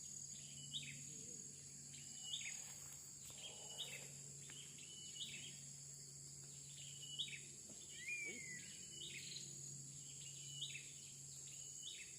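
A bird calling again and again in short notes, about one every second and a half, over a steady high drone of insects and a faint low hum.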